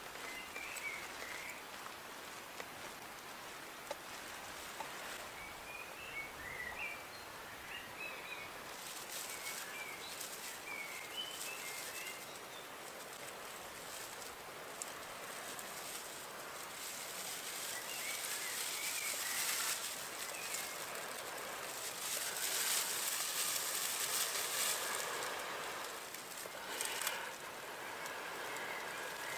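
Breath blown in repeated puffs into a dry-grass tinder bundle holding a glowing ember of char wood, coaxing it toward flame; the puffs grow stronger from about halfway through. Small birds chirp faintly in the first part.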